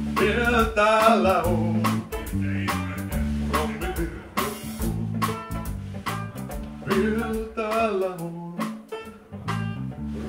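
Live band music: a man singing with a wavering vibrato over a banjo and an electric bass, with a steady beat. The singing comes in two phrases, at the start and again about seven seconds in.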